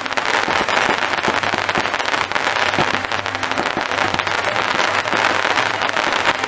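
Fireworks going off in a dense, continuous crackle of many rapid small bangs.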